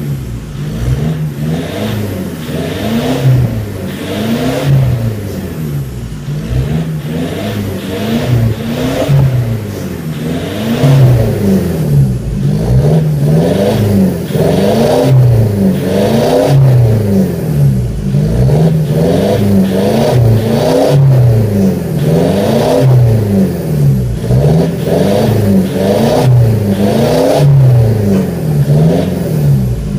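2015 Toyota Fortuner's turbocharged engine revved again and again at standstill through an aftermarket turbo-back exhaust with an aftermarket air intake, each blip rising and falling in pitch about once every second or so. It grows louder about a third of the way in.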